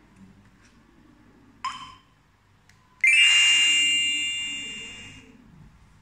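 Daytech TA03 alarm control panel giving one short beep as its touchscreen is tapped. About three seconds in it sounds a loud, steady electronic tone that fades out over about two seconds, as a new remote control is paired and added to its list.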